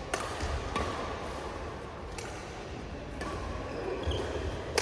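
Badminton rackets striking a shuttlecock during a rally: about four sharp hits, unevenly spaced, the last one near the end.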